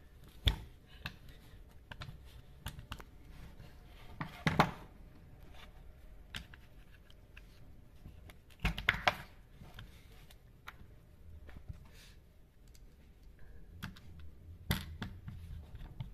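Scattered plastic clicks and knocks from a chainsaw's recoil starter being reassembled by hand: the rope pulley is pressed into the plastic starter cover and its centre screw is turned with a screwdriver. A few louder knocks stand out among the small clicks.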